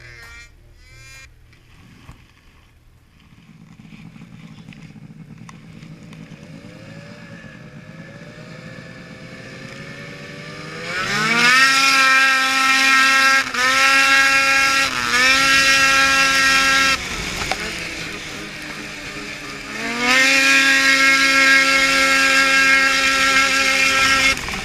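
Two-stroke 800 E-TEC twin of a Ski-Doo Summit snowmobile with an aftermarket GGB Mountain Can exhaust, running low at first. About ten seconds in it revs up to a loud, high, steady note with a few brief throttle dips. It eases off for a few seconds, then revs back up to full throttle near the end.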